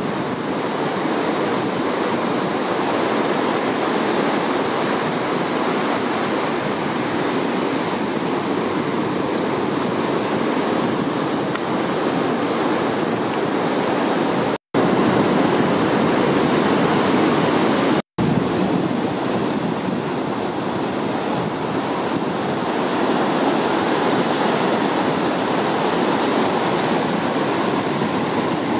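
Ocean surf breaking and washing up a beach, a steady rush of waves. The sound drops out to silence twice for a split second, about fifteen and eighteen seconds in.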